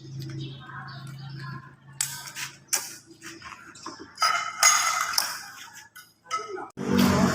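Scattered clicks and short noisy bursts, then loud music with heavy bass from a loudspeaker system cuts in suddenly near the end.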